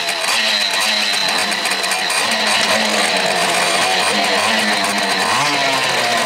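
Small motorcycle engines running and revving, with a pitch rising near the end, mixed with electric-guitar music.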